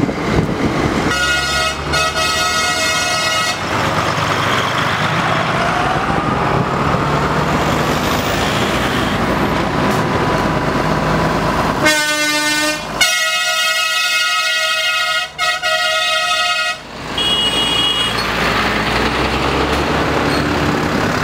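A line of farm tractors driving past with engines running and tyres on tarmac, while horns sound in long blasts: one of about two seconds a second in, a long blast that changes pitch from about 12 to 17 seconds, and a short higher toot right after.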